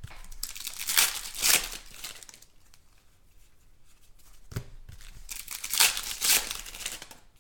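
Trading-card pack wrappers being torn open and crinkled, in two bouts.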